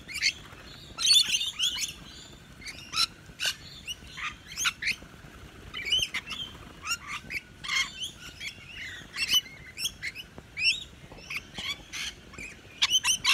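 A flock of rainbow lorikeets giving many short, shrill calls and screeches at irregular intervals while they feed, with a busy cluster about a second in and another near the end.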